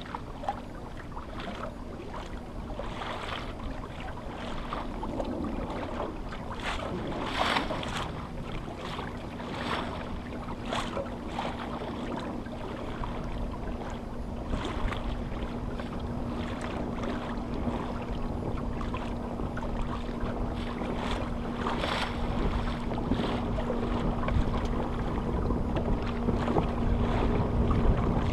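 Wind rumbling on the microphone with water washing and slapping along the hull of a small sailboat under sail, a slap now and then. The wind rumble grows stronger near the end, and a faint steady low hum comes in about halfway through.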